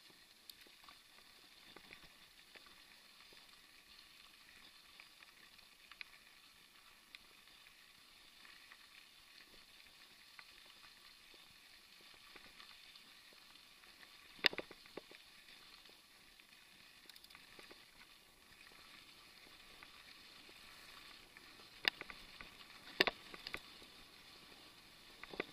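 Mountain bike rolling along a gravel dirt track: a faint steady hiss of the tyres on the gravel, with a few sharp knocks, one about halfway through and two close together near the end.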